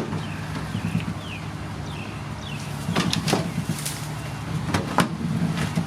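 Diesel engine of heavy earthmoving machinery running steadily, with a few sharp knocks from about halfway through.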